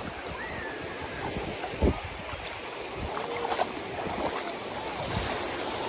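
Small waves lapping over a shallow pebbly shore, with wind buffeting the microphone and a low thump about two seconds in.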